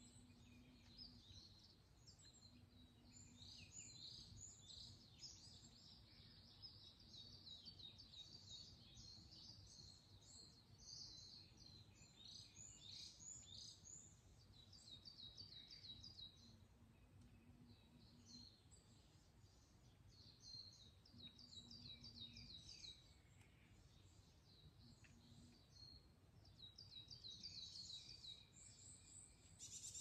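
Forest birds singing: faint, rapid series of high chirps and short trills that come in bursts, one after another, over a low background hiss.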